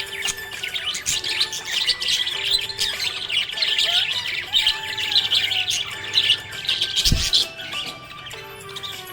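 Budgerigars chattering in a dense, continuous stream of rapid chirps and squawks, with a short low thump about seven seconds in.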